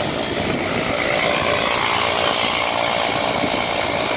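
Cookan 12-volt portable digital tire inflator running, its small piston compressor making a loud, steady buzzing rattle as it pumps up a flat wheelbarrow tire toward its preset 30 psi.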